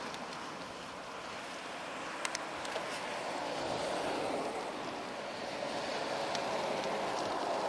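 Road traffic noise with wind rushing over the microphone of a camera on a moving bicycle. The noise eases at the start, then swells as trucks pass in the other lanes, with a couple of small sharp clicks about two seconds in.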